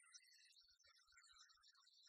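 Near silence, with only faint scattered traces of sound.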